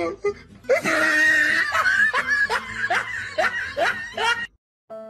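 A person laughing hard in a quick run of repeated bursts that breaks off near the end. Violin music starts just before the end.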